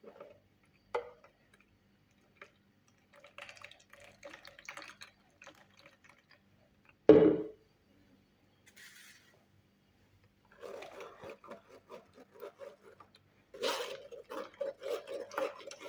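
Kitchen utensils clinking, with one loud knock about seven seconds in, then juice being poured, a quick pulsing splashing from about eleven seconds on.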